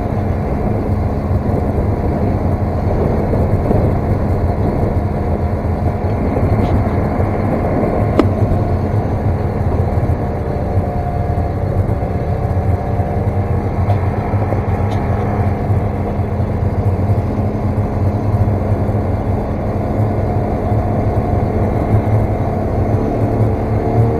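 Snowmobile engine running steadily, with its pitch swelling and easing a few times as the throttle changes.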